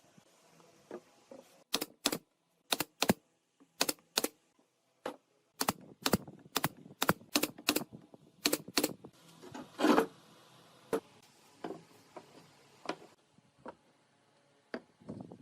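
A run of sharp, separate taps and clicks, often in quick pairs, from hand work on wood pieces, with one louder, longer knock-and-scrape about ten seconds in.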